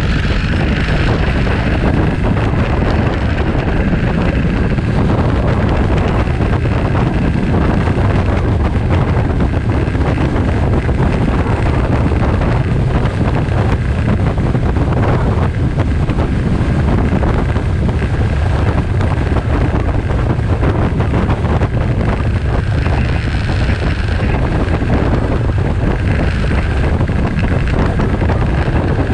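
Wind rushing over the microphone of a camera on a moving motorcycle, with the motorcycle's engine running underneath and its pitch rising and falling a little as it rides.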